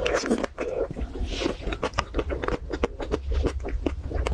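Close-miked crunching and chewing of a chocolate-coated Magnum ice cream bar: the crisp chocolate shell cracks in many rapid crackles, several a second.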